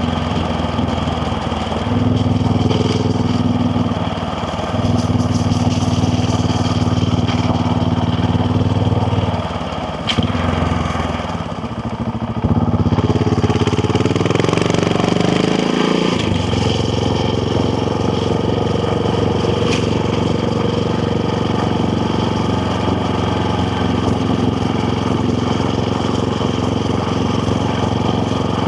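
KTM Duke 690R's single-cylinder engine under way: the throttle opens about two seconds in and holds, eases off around ten seconds, then the pitch climbs for a few seconds before an upshift drops it, and the bike settles into steady cruising.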